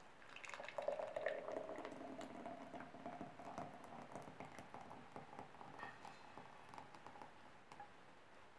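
Thick chocolate sauce made of cream, condensed milk and dark chocolate pouring from a pan into a glass measuring jug, a wet glugging pour with small splatty ticks. It is loudest just after it starts and grows gradually quieter as the stream thins.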